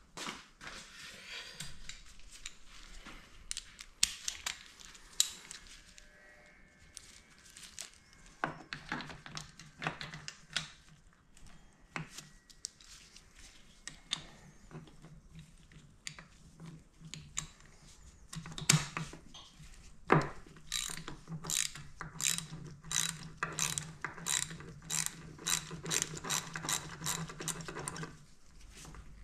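Ratchet wrench clicking as a spark plug is worked loose and backed out of an Aprilia Tuono V4's front cylinder with a spark plug socket on an extension. Scattered clicks at first, then a quick, regular run of ratchet clicks in the last third.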